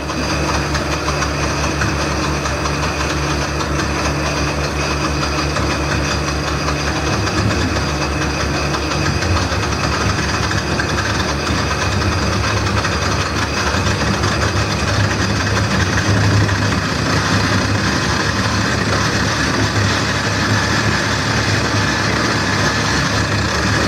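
Wood lathe running, its motor humming steadily while a homemade turning tool scrapes and cuts into the spinning bowl blank.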